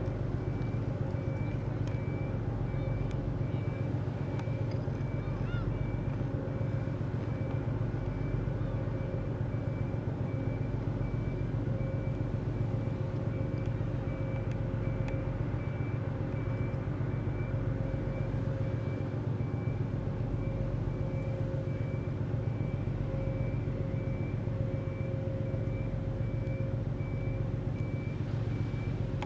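Natchan World, a 112 m Incat wave-piercer catamaran ferry, running its diesel engines while manoeuvring at low speed. The engines make a steady low drone, with a thin steady whine above it.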